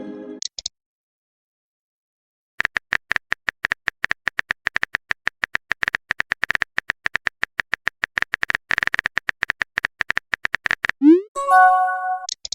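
Phone-keyboard typing sound effect: rapid, irregular clicks for about eight seconds. Then a short rising swoop and a bright chime of a text message being sent.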